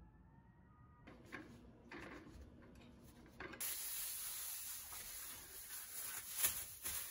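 A few soft scuffs, then a spray bottle of cleaner spritzed onto a kitchen countertop and wiped with a cloth, over a steady hiss that starts suddenly about halfway through and cuts off at the end.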